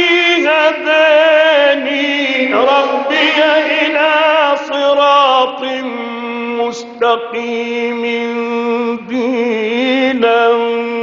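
A male Quran reciter chanting in the melodic tajweed style, drawing each phrase out into long held notes that waver and turn in pitch, with short breaks between phrases. Near the end he sings the words "mustaqīm" and then "dīnan".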